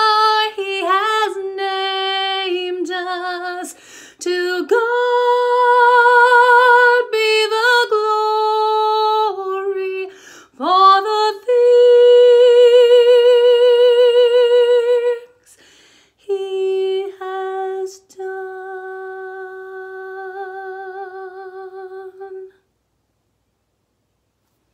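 A woman singing a gospel song unaccompanied, with vibrato on the held notes. The final note is quieter, held for about four seconds, and stops about 22 seconds in.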